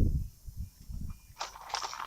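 Handling noise from working a tire plug tool into a tire: low knocks and rumble in the first second, then two short hissing scrapes about a second and a half in.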